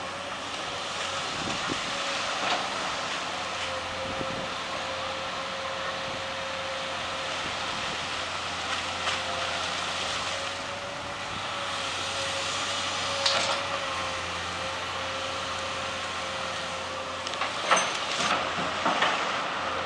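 Amphibious excavator running steadily, with a constant machine whine over the noise and a few sharp metallic knocks, bunched together near the end.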